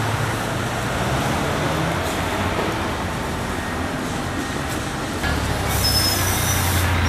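City street traffic: a steady rumble of passing vehicles. About five seconds in, a heavier vehicle's low hum grows louder, with a brief hiss about a second later.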